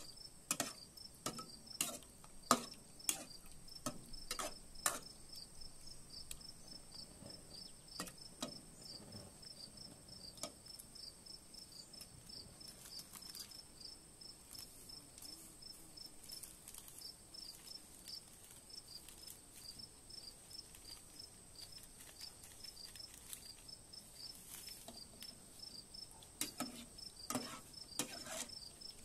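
Metal ladle clinking and scraping against a metal pot of cooked mushrooms as they are stirred, in a run of sharp clicks over the first few seconds and again near the end. Insects chirp in a steady, fast, high-pitched rhythm throughout.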